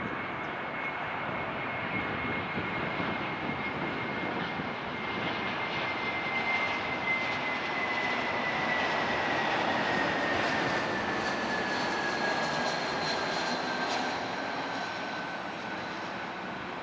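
Airbus A321 jet engines at approach power as the airliner comes in to land, a steady roar with a high whine. It grows louder towards the middle, and the whine falls in pitch as the plane passes, the noise easing off near the end.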